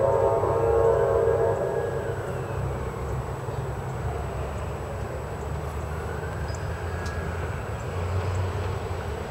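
A diesel locomotive's chime air horn sounding a held chord that cuts off about a second and a half in, followed by the steady low rumble of the train.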